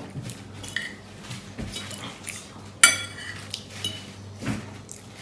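Knife and fork clinking and scraping on a dinner plate while cutting and eating food, in scattered small clicks, with one loud ringing clink about three seconds in.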